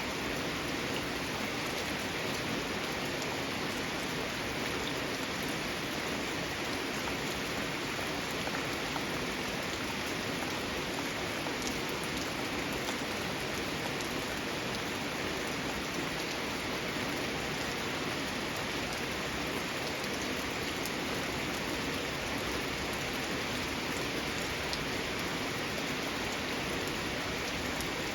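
Steady rain falling on a garden, with a dense even hiss and scattered drops pattering on surfaces.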